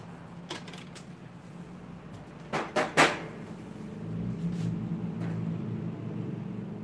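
Three sharp knocks in quick succession about two and a half seconds in, after a few fainter clicks, then a steady low hum from about four seconds in.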